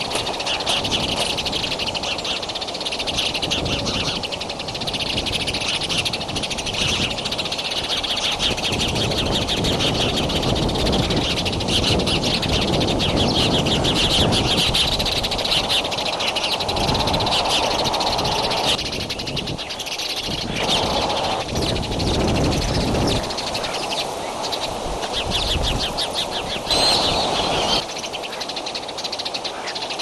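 Birds chirping rapidly and continuously, with a steady low rushing noise beneath.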